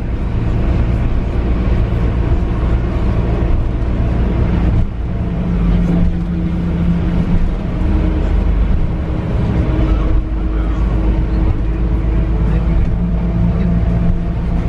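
Airport apron bus driving, heard from inside its cabin: a steady engine drone with road rumble, dipping briefly about five seconds in before the engine tone comes back stronger.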